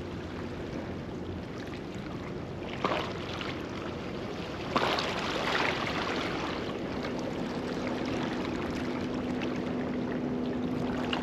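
Steady wind and water noise, with two short knocks about three and five seconds in and a faint steady low hum starting past the halfway point.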